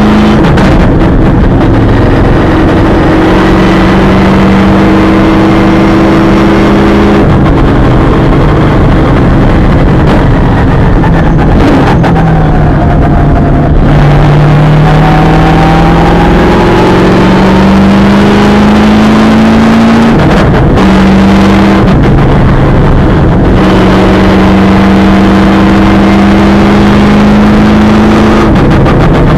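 V8 Supercar's V8 engine running hard and loud, heard from inside the cockpit. Its note climbs in pitch and breaks off at each gear change or lift, several times over.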